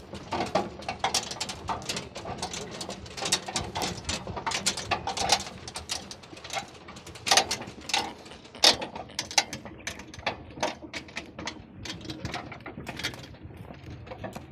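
Metal camel cart rattling and clanking as a running camel pulls it over a dirt track: rapid, irregular clinks and knocks from its hanging chains and iron frame.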